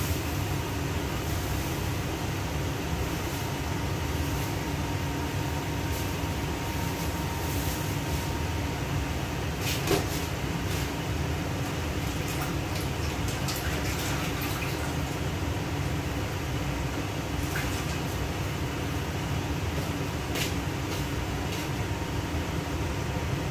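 Steady rumbling noise of lit gas stove burners heating a covered wok and pot, with a faint steady hum under it. A single short click comes about ten seconds in.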